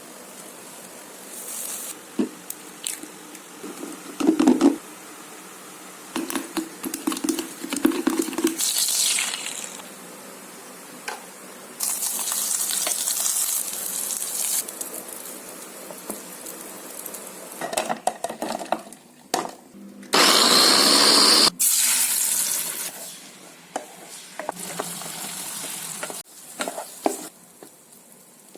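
Kitchen cooking sounds: food frying and sizzling in a pan in several bursts, between clicks and scrapes of utensils. The loudest sizzle comes about twenty seconds in and lasts about two seconds.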